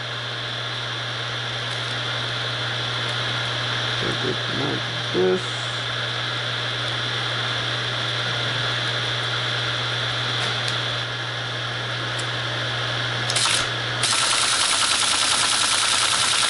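Teletype ASR 33 running with its motor humming while punched paper tape is loaded into the reader. About fourteen seconds in, the tape reader starts and the machine sets up a loud, rapid, even chatter for about three seconds as it reads the tape and prints.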